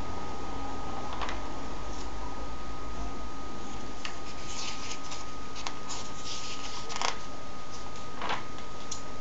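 Comic book pages being handled and turned, giving several short paper rustles, one a page turning over near the end. Underneath is a steady hiss with a constant high tone.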